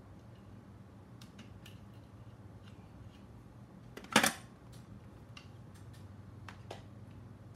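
Small hand tools and parts being handled on a workbench: scattered light clicks and taps, and one louder metallic clatter about four seconds in, over a steady low hum.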